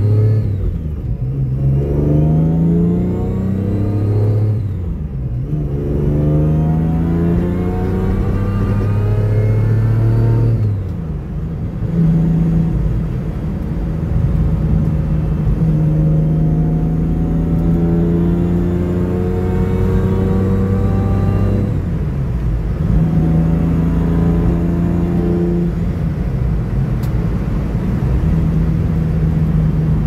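Supercharged Mitsubishi 3000GT V6 heard from inside the cabin, pulling hard under load. Its revs climb and drop back at gear changes about 1, 5 and 11 seconds in, then it runs at a fairly steady engine speed with a couple of brief lifts off the throttle.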